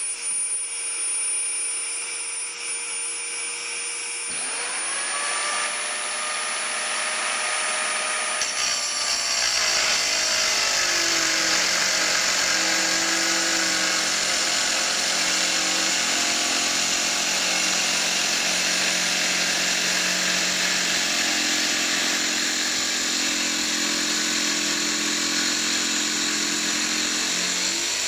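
ALEAPOW K1A 580 W mini circular saw spinning up about four seconds in over the steady hum of a dust-extraction vacuum, then cutting a tile. From about nine seconds the grinding of the blade in the tile grows and the motor pitch drops under load, rising again as the blade comes free near the end.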